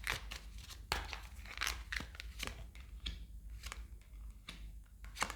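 Tarot cards being shuffled and drawn by hand: a series of sharp card snaps with papery rustling between them.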